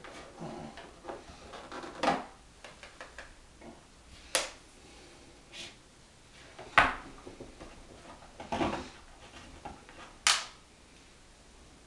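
Block of homemade soap handled and knocked against a wooden cutting board. There are five sharp knocks about two seconds apart with quieter handling sounds between them, and the loudest knock comes near the middle.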